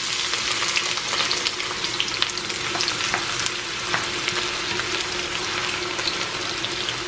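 Chopped red onions sizzling and crackling in hot palm oil in a stainless steel pan, stirred with a spatula.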